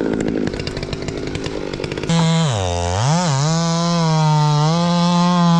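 Chainsaw running, then about two seconds in a louder saw at high revs starts abruptly; its pitch drops sharply, climbs back, and then holds steady and high.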